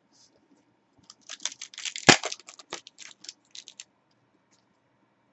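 A stack of trading cards handled and flicked through by hand: a quick run of short, crisp card snaps for about three seconds, with one louder snap in the middle.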